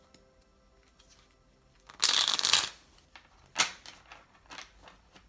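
A tarot deck being shuffled by hand. A loud rush of cards comes about two seconds in, followed by a few shorter, softer card flicks.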